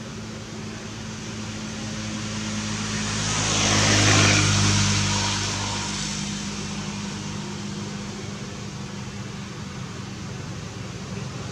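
A motor vehicle passing, its engine hum and road noise swelling to a peak about four seconds in, then fading to a steady low hum.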